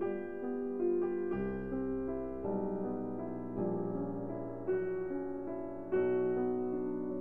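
Background instrumental music: a slow, soft melody over sustained chords, the notes changing about every half second to a second.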